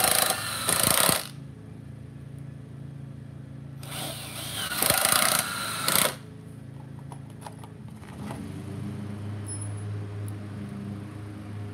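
Cordless drill driving screws into pressure-treated wood in two bursts, the motor whining and bogging as each screw pulls in: one right at the start and one about four seconds in. A low steady hum follows from about eight seconds in.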